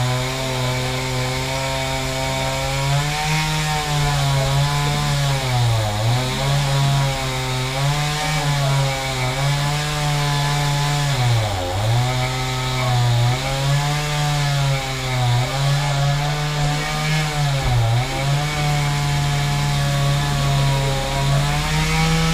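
Chainsaw running continuously while cutting a tree, its engine pitch holding high and dipping briefly a few times, about 6, 12 and 18 seconds in.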